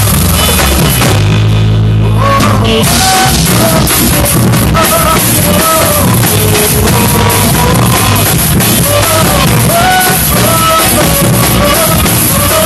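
Drum kit played along with a rock-style gospel song, with singing and a band. About a second in, the drums and cymbals drop out for a moment over a held low chord, then the full band and vocals come back in.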